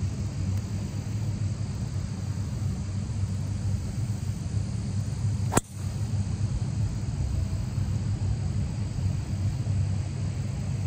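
Golf driver striking a teed ball on a full tee shot: one sharp crack a little past halfway, over a steady low rumble.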